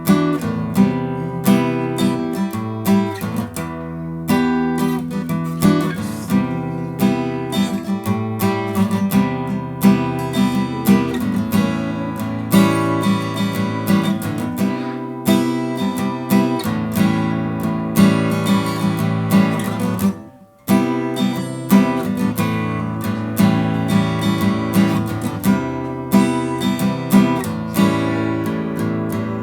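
Yamaha FG-720 acoustic guitar (spruce top, mahogany back and sides) being played, chords ringing with many short note attacks; the playing breaks off for a moment about two-thirds of the way through and then resumes.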